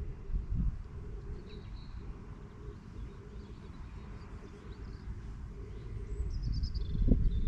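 A few faint bird chirps over a steady low rumble, which grows louder near the end.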